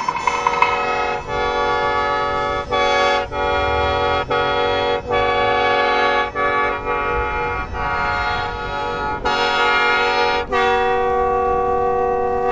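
Bamboo mouth organ played in sustained reedy chords. The chords change every second or so, with brief breaks between phrases, and the last one is held for about two seconds before it cuts off.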